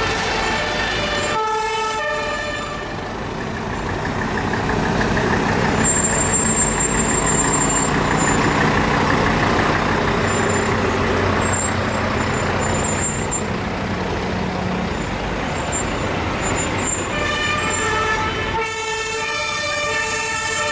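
Convoy of fire trucks driving past, their heavy diesel engines and tyres running steadily. Short bursts of a two-tone emergency siren sound about a second in and again near the end.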